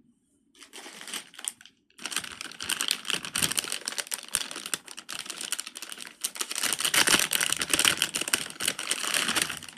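Plastic fidget toy being worked by hand: rapid, dense clicking and popping. A few clicks come in the first second and a half, then the clicking runs continuously from about two seconds in.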